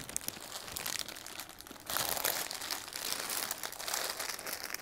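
Rustling and clicking handling noise as necklace sets are picked up and shown, louder for about a second and a half starting about two seconds in.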